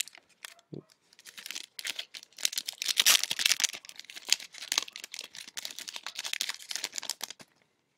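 A trading-card pack wrapper crinkling and tearing as it is opened by hand, a dense run of irregular crackles.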